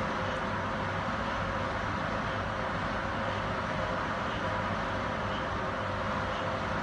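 Steady machine hum with a faint held tone, from the computer and ventilation equipment around an MRI workstation.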